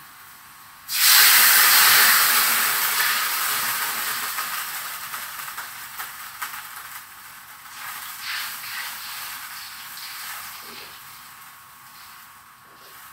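Canned stewed pork and its gravy hitting hot oil in a wok with a sudden loud sizzle about a second in, which slowly dies down. A few light spatula scrapes against the wok come near the end.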